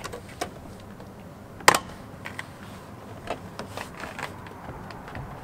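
Plastic door trim panel being prised off by hand: scattered clicks and creaks of its plastic retaining clips, with one sharp snap just under two seconds in as a clip lets go.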